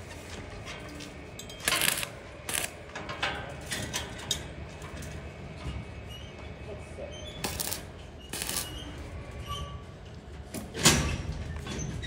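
Stick-welding arc on galvanized steel square tubing, struck in several short crackling bursts as tack welds are made at the frame joints; the loudest burst comes near the end.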